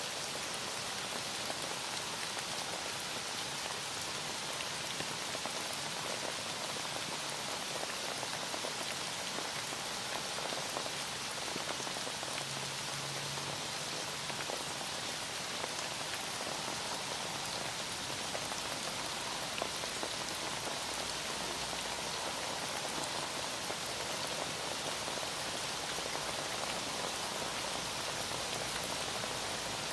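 Heavy rain falling steadily on a surface, an even hiss of many drops.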